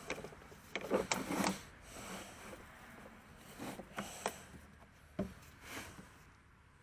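A few irregular clicks and knocks of hand tools and sockets being handled while working on the sway bar bushing bolts, most of them in the first second and a half and a few more around four to five seconds in.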